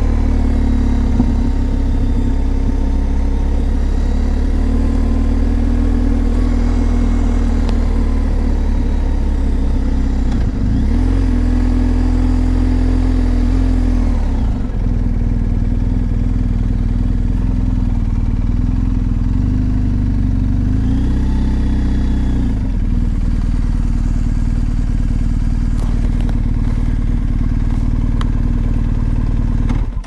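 BMW GS boxer-twin motorcycle engine running at road speed. Its engine note dips and picks back up three times, about ten, fifteen and twenty-two seconds in.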